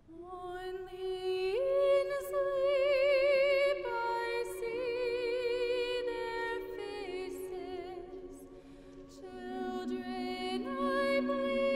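Mixed choir singing slow, sustained a cappella chords with vibrato, the harmony shifting every few seconds. The sound fades somewhat about two-thirds of the way through, then swells again.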